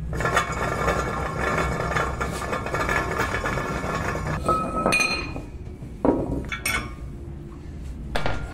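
Brake disc and hub spun by hand on its sealed wheel bearing, giving a continuous metallic grinding rattle for about four seconds that gives way to a brief ringing as it slows. A few sharp metal knocks follow in the last few seconds.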